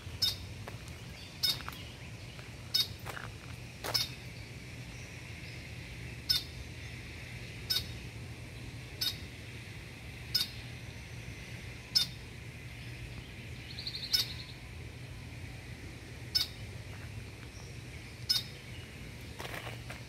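A bird repeating a short, sharp call about once every second or so, with a quick trill of a few notes near the middle, over a steady high background hiss.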